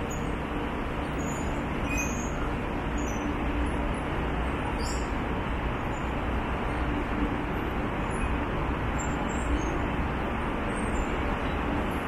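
Steady rumble of vehicle traffic in a city, with no single event standing out.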